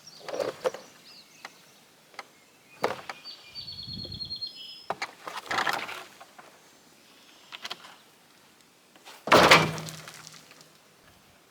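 Irregular wooden knocks and clatters of slab wood being handled and set down, the loudest thud about nine seconds in. A bird chirps rapidly in the middle.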